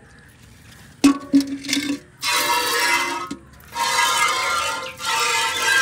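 A steel milk pail clinks as it is set under the cow about a second in, then hand-milked squirts of milk strike the empty pail in long bursts of hissing spray with the metal ringing, split by short pauses.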